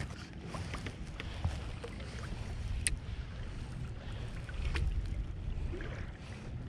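Water lapping against a kayak hull with wind buffeting the microphone in a low rumble, and a few light sharp clicks, the clearest about three seconds in.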